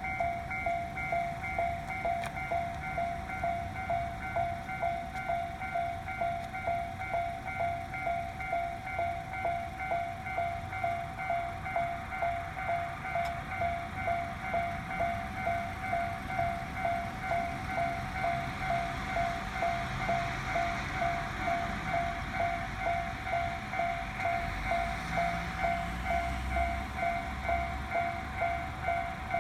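Japanese level-crossing warning bell ringing steadily at about two strokes a second. In the second half a train passes through the crossing, and its rushing and low rumble grow under the bell.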